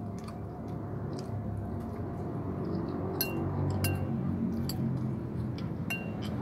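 Metal spoon clinking and scraping against a ceramic bowl of rice: a string of sharp clinks, a few of them ringing briefly, over a steady low background hum.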